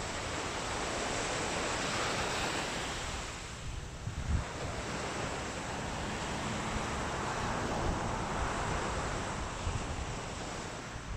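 Sea waves breaking and washing up a sandy beach, the surf hiss swelling and ebbing twice, with wind buffeting the microphone.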